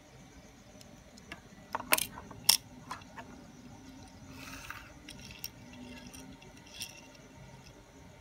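Hot Wheels 1:64 die-cast toy car clacking down onto a hard surface, two sharp clicks about two seconds in, followed by a brief scrape and a few lighter taps as it is pushed around by hand.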